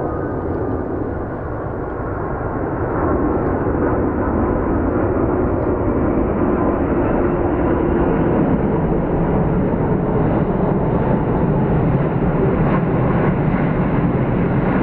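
Airbus A380-800's four jet engines rumbling as the airliner passes, growing louder about three seconds in and then holding steady.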